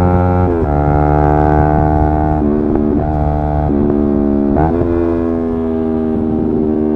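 Yamaha R3's 321 cc parallel-twin engine running under way, its note changing pitch suddenly a few times and climbing slowly in between.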